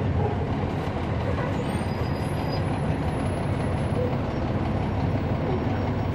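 Cabin sound of a 2011 NABI 416.15 (40-SFW) transit bus: its Cummins ISL9 inline-six diesel runs steadily under a deep, even drone with a constant wash of cabin noise.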